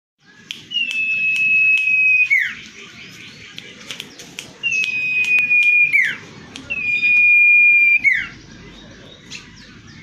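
Common iora (cipow) singing: three long, steady high whistles, each held about a second and a half and ending in a quick downward slur, with short sharp clicks between them.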